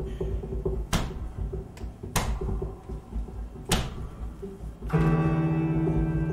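Sparse live music from a trio with upright double bass: quiet low notes broken by three sharp knocks spaced a second or so apart, then about five seconds in a loud, steady low drone with many overtones enters and holds.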